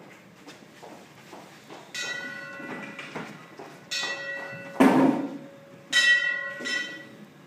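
Metallic bell-like ringing, struck three times about two seconds apart, each ring fading over about a second. A loud thud comes between the second and third rings.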